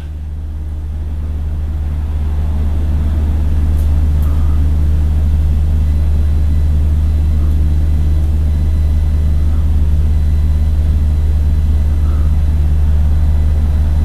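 A loud, steady low hum that builds over the first couple of seconds and then holds level.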